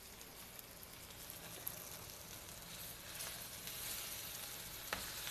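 Diced eggplant frying in hot olive oil in a pan: a steady sizzle that grows louder in the second half as the pieces are moved with a spatula. There is a sharp click near the end.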